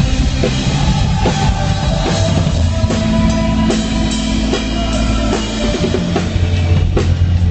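Rock band playing loudly during a sound check: drum kit with bass drum and cymbals hitting steadily over sustained bass notes.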